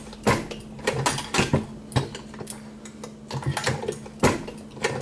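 Reloading press being cycled by hand: a run of irregular metal clicks and clanks as the handle is worked, each full stroke counted by the press monitor. The loudest clanks come about a quarter second in, around a second and a half, and a little past four seconds.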